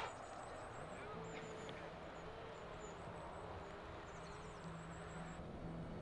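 The echo of a shotgun shot dies away at the very start, then faint open-air quiet with distant bird calls and a faint steady low hum.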